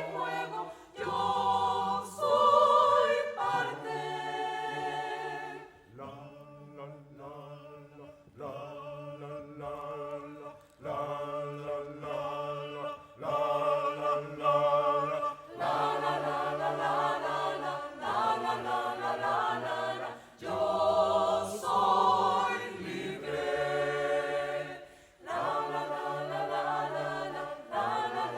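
Choir singing in phrases a few seconds long with short breaks between them, softer for several seconds about a quarter of the way in, then fuller again.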